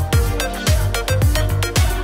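Upbeat electronic dance music with a steady kick drum, about two beats a second, under sustained synth notes.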